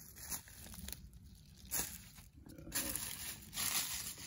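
Footsteps crunching and rustling through dry fallen leaves, in irregular steps.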